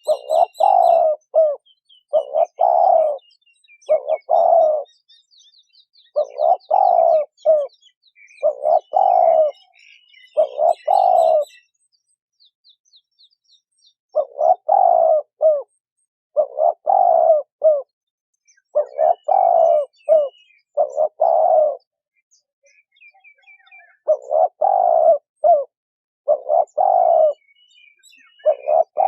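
Male and female spotted doves cooing: repeated low coo phrases about every two seconds, with two short pauses, about 12 and 22 seconds in. Faint high twittering of small birds runs through the first half.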